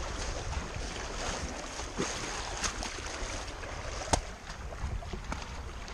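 Small Lake Superior waves lapping against rocks and a pebble shore, with wind on the microphone. A couple of sharp clicks, about two and four seconds in.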